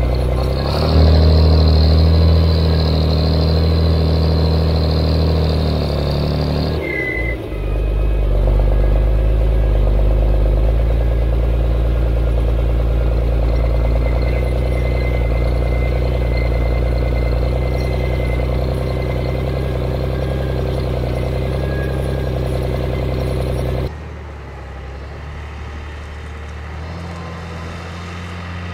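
HSM 904 skidder's 6.7-litre, 150 hp engine running steadily under load as the machine travels, heard close up on the machine, with a high whine over it for the first several seconds and a shift in the engine note shortly after. Near the end the sound drops in level and becomes more distant.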